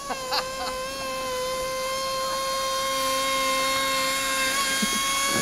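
Radio-controlled mono-hull racing boat's motor running at a steady high whine as the boat skims across snow, slowly growing louder, with a few soft knocks near the start.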